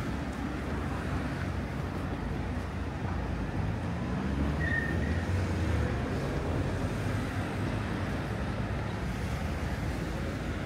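Road traffic on a busy seafront road: a steady rush of passing cars, with one vehicle's engine getting louder in the middle and then fading. A short high squeak sounds once about halfway.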